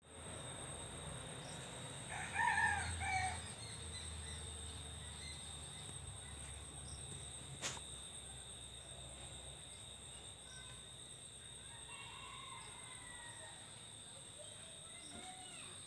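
A rooster crows once, briefly, about two seconds in, over a steady high-pitched drone of insects. A single sharp click near the middle, and faint bird calls near the end.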